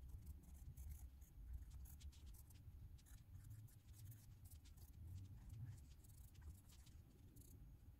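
Faint scratching of a coloured pencil's tip on paper in many short, irregular strokes, over a low steady rumble.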